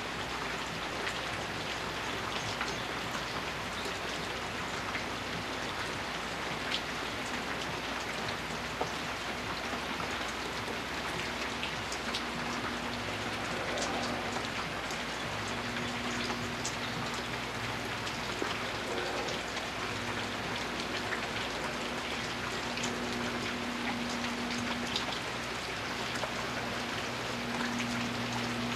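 Steady rain falling, a constant hiss with scattered drops ticking on nearby surfaces.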